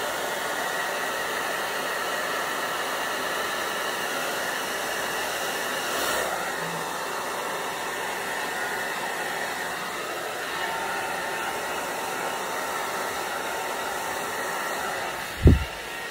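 Handheld hair dryer running steadily, blowing across wet acrylic paint; its owner feels the dryer is dying. A brief low thump sounds near the end.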